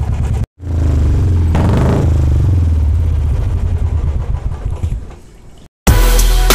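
Royal Enfield Bullet 350's single-cylinder engine running through a Globe Dolphin aftermarket silencer, recorded right at the silencer's outlet, with a short rise and fall in revs about one and a half seconds in. The engine sound fades and music takes over near the end.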